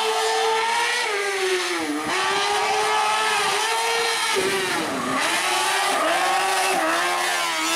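Race car engine at full throttle on a hill-climb course, its pitch climbing through the revs and falling back sharply at gear changes about 2 s, 4.5 s and 7 s in, with a deeper drop and recovery around 5 s as it lifts for a corner.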